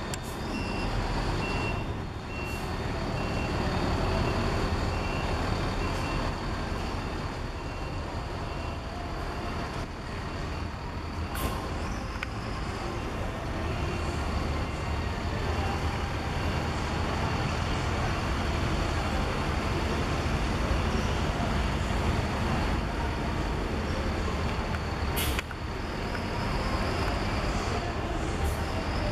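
Intercity coach's diesel engine running as the coach manoeuvres slowly at low speed. A reversing beeper sounds in a run of quick, evenly spaced beeps for the first several seconds, and there are two short high hisses, one near the middle and one near the end.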